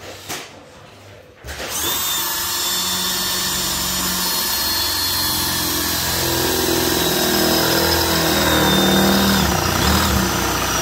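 Cordless drill with a worn Dormer A002 high-speed steel bit boring into 2 mm mild steel plate without a pilot hole. The motor runs under steady load, with a thin high squeal from the bit cutting the steel. The drilling starts about a second and a half in, after a short click.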